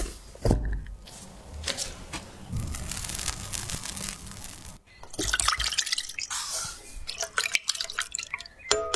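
A kitchen knife thumps through a soft chocolate towel-roll cake onto a wooden board about half a second in, then wet, crackly squishing of the cream-and-cookie-crumb filling. From about five seconds in, a silicone spatula stirs butter, cocoa milk and sugar melting in a small pot, with wet sloshing and clicks.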